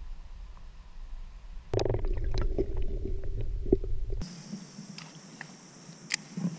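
Muffled, rumbling underwater sound with small clicks, heard through a camera held under the river surface; it cuts in abruptly about two seconds in and cuts off just past four seconds. Before and after it, quieter open-air river ambience with a few light clicks.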